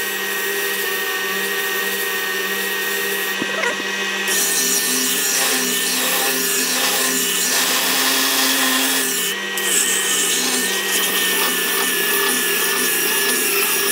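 Parkside PBTS 370 B2 belt and disc sander running steadily while a wooden board is ground down against it. The sanding noise grows louder about four seconds in and dips briefly about two-thirds of the way through.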